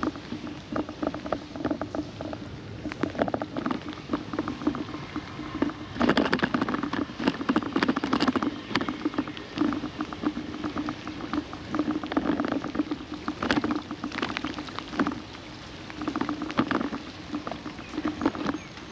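Raindrops pattering irregularly on a GoPro camera's housing: sharp taps, thicker at times, over a steady low hum.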